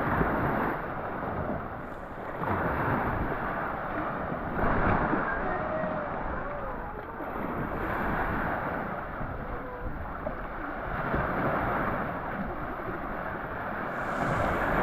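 Surf washing onto a sand beach, the rush of the waves swelling and easing every couple of seconds, with wind buffeting the microphone.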